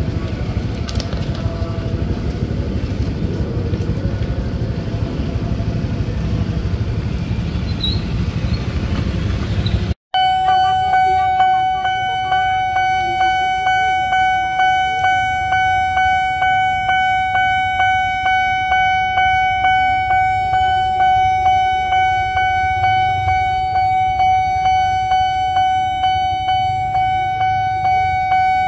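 Road traffic noise, which breaks off about ten seconds in for a railway level-crossing electronic alarm bell. The bell rings a steady tone that pulses in a fast, even rhythm, warning that a train is coming while the barrier is lowered.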